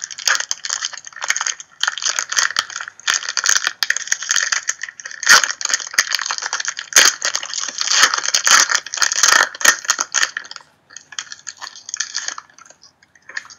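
Foil wrapper of a trading card pack crinkling and tearing as it is pulled open by hand, a dense crackle that thins out to a few small crinkles near the end.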